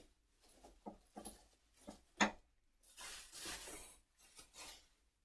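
Gloved hands handling items on an over-bed table: a few soft knocks and one sharper tap about two seconds in, then about a second of crinkling as a paper wipe or wrapper is crumpled.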